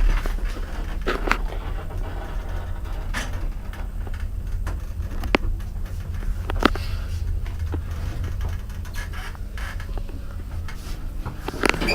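Steady low hum of a lift car in motion, with a few sharp clicks and knocks scattered through it.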